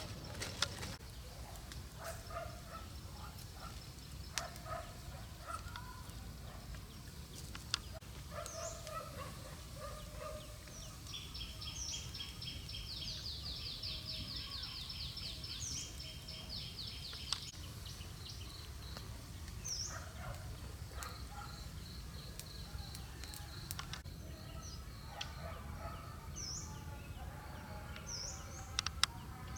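Wild birds calling: short high chirps scattered throughout, and a fast rattling trill of repeated notes for several seconds around the middle. Beneath them a steady low rumble, with a few sharp clicks.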